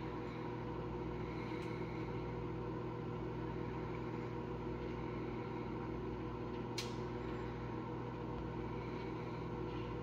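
Microwave oven running, a steady electrical hum with its fan, heating food in an aluminum tray with no crackle of arcing from the metal. A single short click about seven seconds in.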